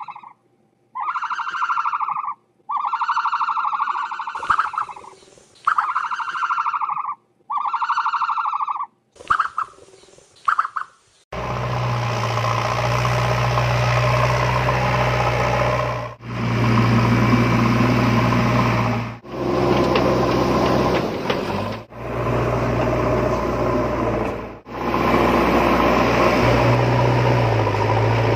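A repeating electronic alarm tone, each wavering note lasting about a second with short gaps, for the first eleven seconds. It is followed by a steady engine running with a deep hum, cut off briefly every few seconds.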